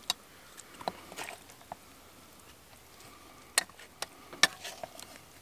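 A few sharp, scattered knocks and clicks of a wooden spoon against a cast-iron pot and wooden bowls as stew is ladled out, the loudest two in the second half, with quiet between.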